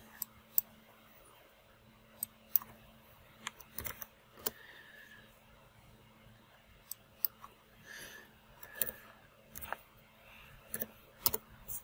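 Computer mouse clicks and keyboard keystrokes: about a dozen short, sharp clicks, scattered singly and in small clusters, as values are clicked into and typed into fields.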